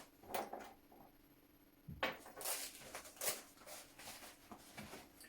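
Metal hand tools being handled and sorted while picking out a punch. About half a dozen light knocks and clicks come spread over the seconds, most of them in the middle.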